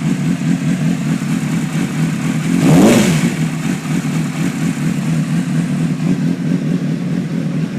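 2003 Honda CBR600RR inline-four engine idling, with one quick throttle blip about three seconds in, the pitch rising and falling back. The bike suffers from what the owner calls a rough idle.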